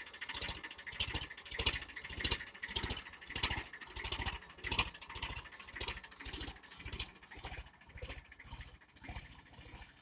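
Indo Farm 2035 DI diesel tractor working a dry field with a rotavator, its sound dominated by a regular beat of thuds about one and a half a second.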